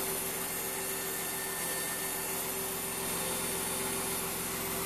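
Failing electric fuel pump of a BMW E34 with about 250,000 miles, giving a steady whirr with a constant whine in it: the sound of a dying pump.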